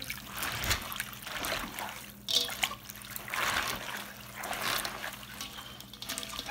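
Hands squeezing and turning mustard greens in liquid in a stainless steel bowl: wet squelching and sloshing that comes in irregular swells, about one a second.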